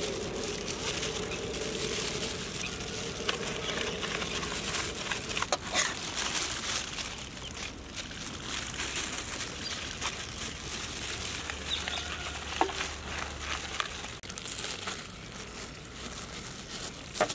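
Aluminium foil bags crinkling as handfuls of food are scooped and pushed into them, with a few sharp clicks along the way.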